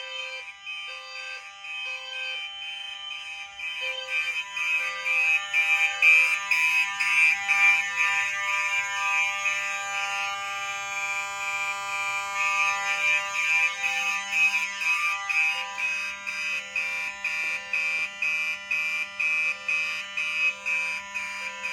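Several fire alarm horns sounding together in a system test. Steady alarm tones are overlaid by one horn pulsing in groups of three followed by a pause, the temporal-three evacuation pattern. From about halfway through, a faster on-off beat of about two pulses a second joins in.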